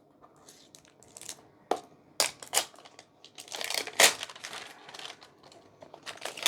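Thick plastic packaging being pulled up and handled, giving irregular crinkling and crackling. The crinkling is densest around the middle, with a sharp snap about four seconds in.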